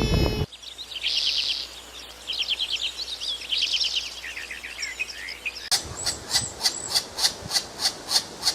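A songbird singing rapid, high trilled phrases. Then an abrupt change to evenly repeated short, sharp calls, about three a second.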